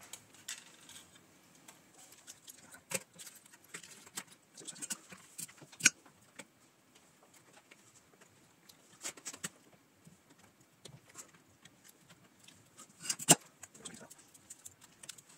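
Scattered small clicks and taps from a printed circuit board and small parts being handled on a wooden desk, with a sharper tap about six seconds in and another about thirteen seconds in.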